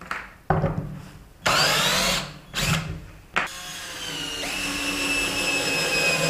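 A brushless 48 V cordless drill/driver runs in several short bursts, backing screws out of a wooden board. It then makes one continuous run of about three seconds driving a screw into the end of the board, the steady whine growing louder as the screw goes in.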